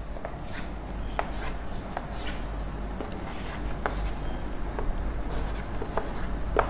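Chalk scratching and tapping on a chalkboard in short, irregular strokes as lines and numbers are written.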